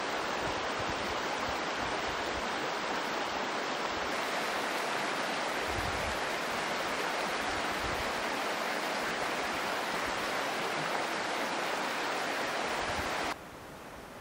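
Steady rushing of a shallow, rocky river running over rapids, with low gusts of wind buffeting the microphone. Near the end it cuts to a much quieter, even hiss.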